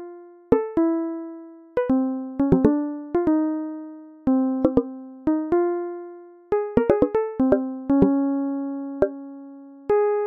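Background music of keyboard notes, each struck sharply and left to ring and fade, some single and some in quick clusters.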